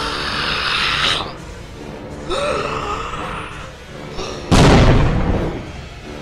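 Two drawn-out, pitched alien screeches, the first cutting off about a second in and the second a couple of seconds later, then a sudden loud boom about four and a half seconds in that fades away over a second or so.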